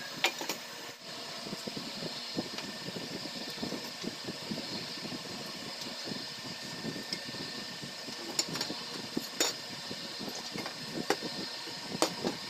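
Light clicks and knocks of wooden pieces and pipes being handled and set down on a table, scattered through a steady mechanical hum.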